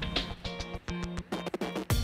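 Background music: a run of short, evenly paced notes at a steady rhythm.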